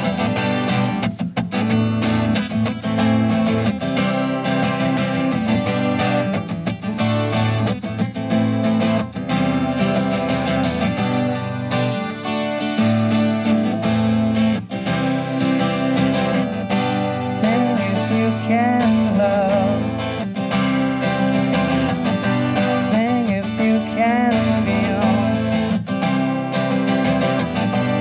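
Amplified twelve-string acoustic guitar strummed in a steady rhythm, an instrumental break with no sung words. In the second half a wavering melody line comes in over the strumming.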